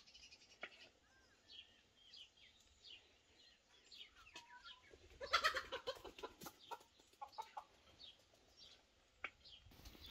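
Chickens clucking, with a louder run of quick clucks about five seconds in, over small birds chirping and a few sharp taps of a knife on a wooden cutting board.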